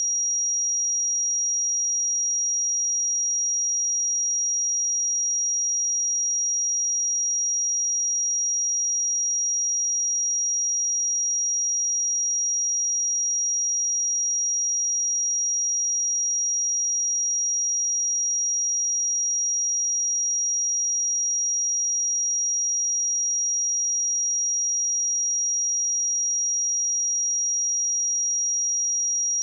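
A steady pure test tone at 5713 Hz: a single high-pitched sine wave held at constant pitch and level, for checking speakers or headphones.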